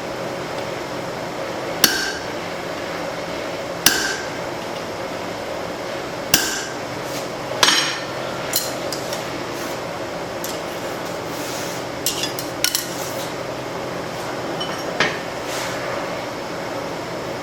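Blacksmith's hammer striking hot spring steel on the anvil: four sharp, ringing blows about two seconds apart, then a few lighter metallic clinks later on, over a steady background rush.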